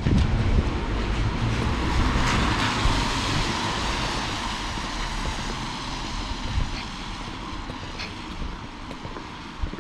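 A passing vehicle, its noise swelling about two seconds in and then slowly fading away over a street background of steady noise.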